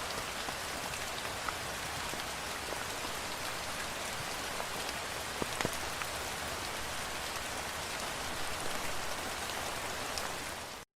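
Steady rain falling, with scattered individual drops ticking out above the hiss; it cuts off suddenly near the end.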